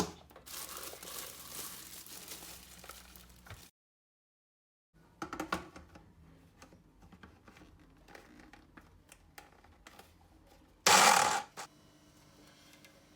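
Kitchen handling noises: rustling and crinkling, then scattered light clicks and taps, with one brief loud noisy burst near the end.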